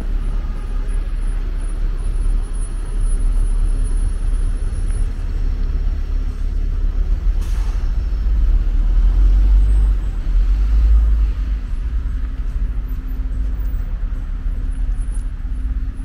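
Street traffic: motor vehicles passing with a heavy low rumble that swells about 8 to 11 seconds in, and a short hiss about 7.5 seconds in.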